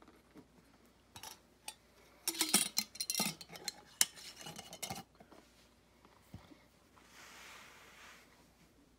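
A jar and its lid being handled: clinks, rattles and clicks, thickest a couple of seconds in, with one sharp click about four seconds in. Near the end comes a soft hiss lasting about a second.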